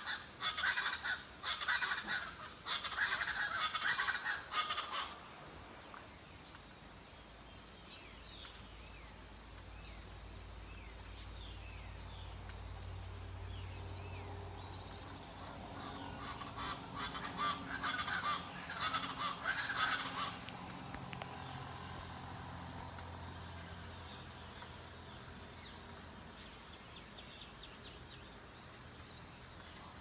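Tropical forest birds calling: a burst of loud, raucous, rapid group calls in the first five seconds and another from about 16 to 20 seconds in, with scattered single chirps and whistles in between.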